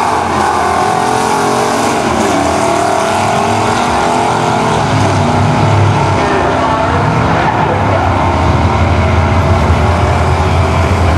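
Two vintage drag-racing cars launching side by side and accelerating hard down the strip at full throttle, the engine pitch climbing and dropping back as they shift through the gears.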